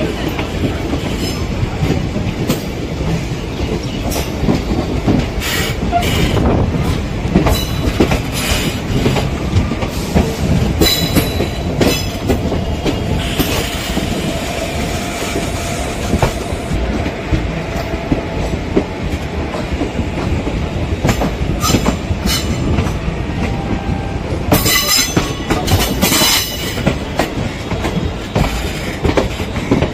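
Moving express train's ICF coach running on the track: a steady, loud wheel-and-rail rumble with irregular sharp clacks over rail joints, and a faint drawn-out whine about halfway through.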